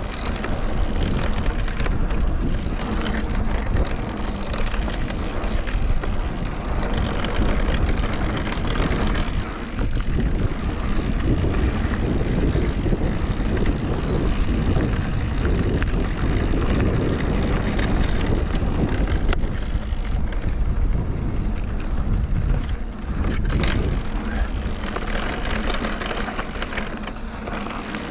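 Mountain bike riding over rough, rocky trail: a continuous rush of tyre noise, with rapid clicks and rattles from the bike over the bumps and a low rumble of wind on the microphone.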